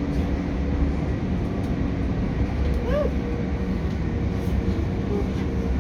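Passenger train running, heard from inside the carriage: a steady low rumble with a faint constant hum.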